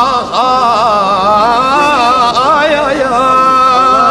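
A man singing a Husseini (Shia) lament, drawing out long wordless notes that waver up and down in pitch.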